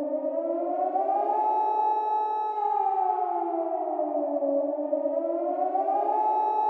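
Air-raid siren wailing in a slow cycle. Its pitch rises over about a second, holds high for about a second, then falls over two seconds and rises again near the end.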